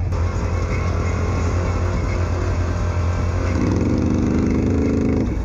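ATV engine running steadily. About three and a half seconds in, a second, higher engine note revs up, then drops away shortly before the end.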